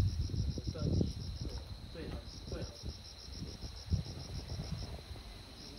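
An insect chirping in a steady pulsed trill, about seven high chirps a second, pausing briefly twice. Low knocks and rustle sound underneath.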